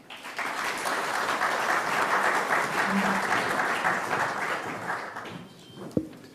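Audience applauding, starting together and dying away after about five seconds, with a single knock near the end.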